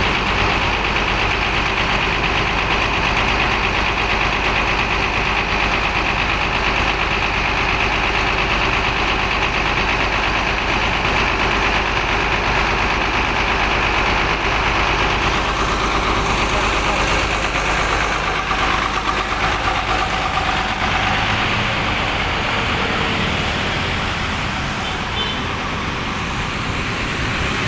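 Rear-mounted diesel engine of an intercity bus idling steadily with its engine bay open, getting a little quieter near the end.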